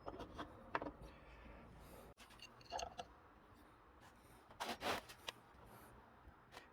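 Small objects being handled and worked by hand: scattered light clicks and short scraping rubs, the loudest a pair of scrapes just under five seconds in.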